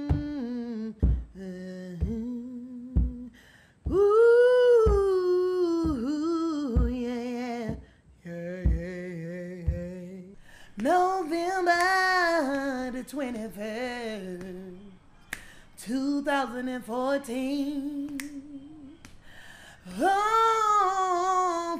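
A woman humming and singing a slow, wordless a cappella melody, with pauses between phrases. A soft low beat keeps time about once a second through the first half.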